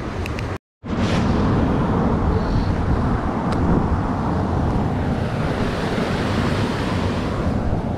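Wind buffeting the microphone over the steady rush of a shallow creek running over rocks. The sound cuts out completely for a moment just under a second in.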